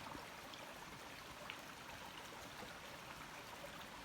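Faint, steady rush of a stream flowing at a trail water crossing.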